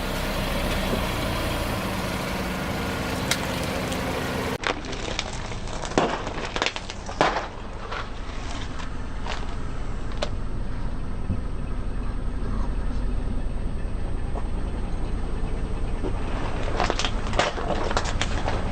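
A car's engine running while the tyres roll over and crush objects, with a few sharp cracks and snaps a couple of seconds after a cut, then a steady low engine rumble.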